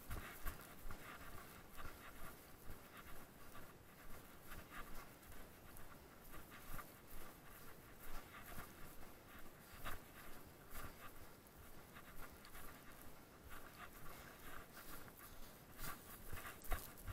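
A runner's footfalls on dry dirt in a quick, steady running rhythm of about three steps a second, with hard panting breath close to the microphone.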